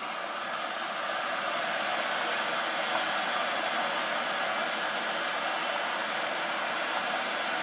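Hoover front-loading washing machine starting its heavy-duty cycle with prewash: a steady rush of water, beginning suddenly, as the machine fills.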